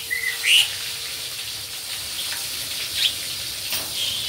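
Tilapia frying in a wok of hot oil, a steady high sizzle, with a bird chirping briefly about half a second in and again near three seconds.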